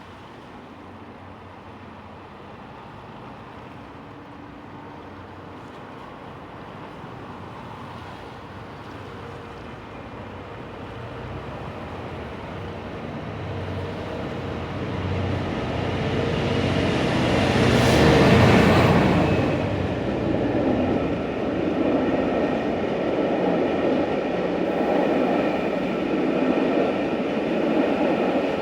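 Class 66 diesel locomotive hauling the Royal Scotsman train, drawing nearer and growing steadily louder until it passes, loudest about two-thirds of the way through. The coaches then roll past with a steady rumble and the clatter of wheels on the rails.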